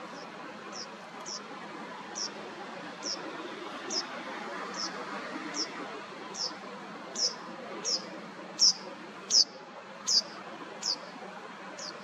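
A bird calling: a short, high, downward-slurred note repeated evenly about every three-quarters of a second, growing louder to a peak about three-quarters of the way through, then fading, over steady background noise.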